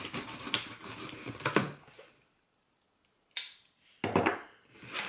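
Packing tape on a cardboard box being cut with a box cutter and pulled, with scraping and clicks. The sound stops abruptly about two seconds in, a single sharp click follows, and handling noise starts again near the end.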